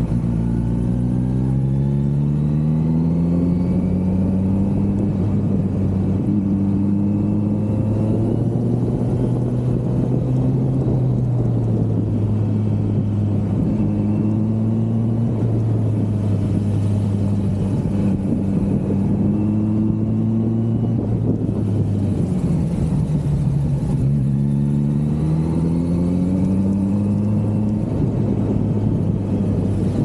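Kawasaki Z900's inline-four engine under way, revs rising at the start and again a little after the middle, with steadier revs between.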